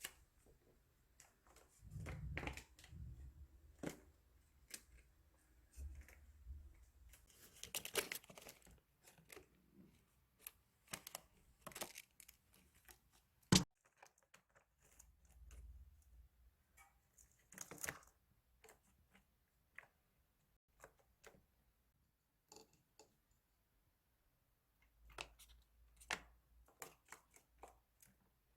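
Pet chipmunk rummaging at snacks: scattered small rustles, crinkles and tearing sounds, with one sharp click about halfway through.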